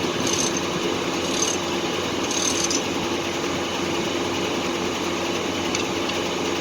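Foley Belsaw circular sawmill running: a steady, loud machine noise with a constant hum, and a few short high hisses in the first three seconds.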